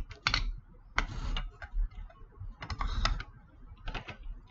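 Plastic toy building blocks clicking and clattering as they are handled and pulled apart, in several short bursts of clicks.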